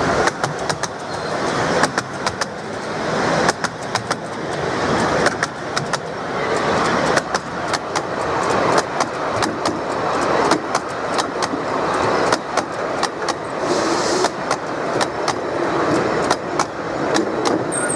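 Miniature railway carriages rolling past close by: a steady rumble of wheels on track, with many sharp clicks as the wheels cross rail joints.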